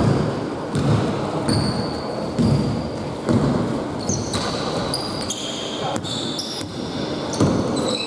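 A basketball being dribbled on a hardwood court, bouncing about once a second. Many short, high sneaker squeaks on the floor come mostly in the second half.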